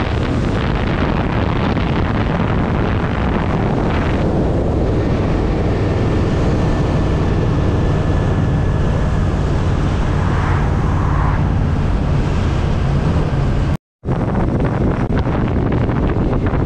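Indian Scout Sixty's V-twin engine running at a steady cruising pitch, with heavy wind buffeting the microphone. The sound cuts out for a split second near the end.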